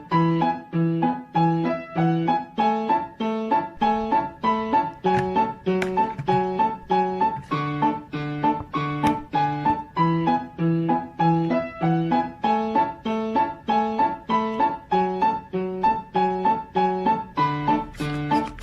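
Light background music: a keyboard tune of short, evenly paced notes, about three a second.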